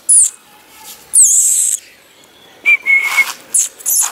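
Small puppies squeaking and whimpering at close range: five or six short, very high-pitched squeals that slide down in pitch, one of them longer, with a brief steady whistle-like note about three seconds in.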